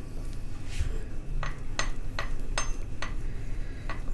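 Rolling pin rolling out samosa dough, giving about half a dozen sharp, light clicks from about a second and a half in.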